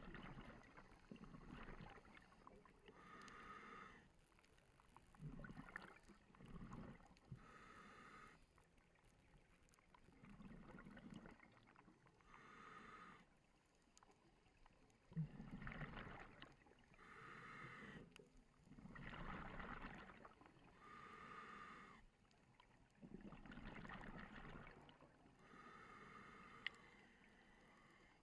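Scuba diver breathing through a regulator, faint: a hissing inhale through the demand valve alternates with a bubbling exhale, about one breath every four seconds. It is muffled by the camera's underwater housing.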